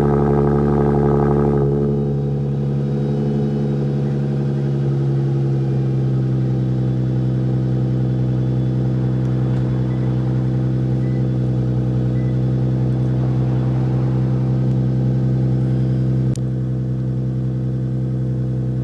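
Lexus IS 350's 3.5-litre V6 idling steadily through a Tsudo mid-pipe and muffler-delete exhaust, a deep even drone with no revs, the engine partly warmed up and not that loud. A single sharp click comes near the end.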